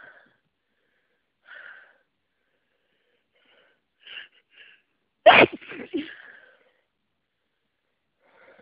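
A person with a cold sneezing once, loudly and suddenly, about five seconds in: part of a sneezing fit.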